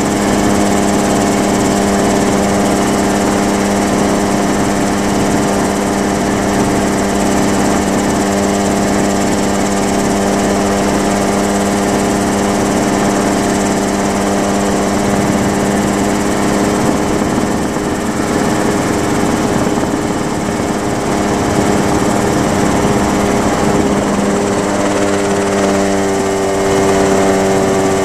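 Mosquito ultralight helicopter's engine and rotor running steadily in flight, heard from on board as a steady drone. The engine note shifts slightly about 25 seconds in.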